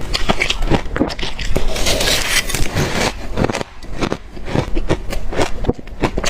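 Close-miked chewing of hard crushed ice from a deep freezer: a rapid run of crisp crunches, with a denser grinding stretch about two seconds in.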